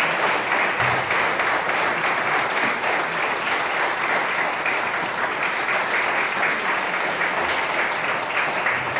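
Audience applauding: many hands clapping together at a steady level throughout.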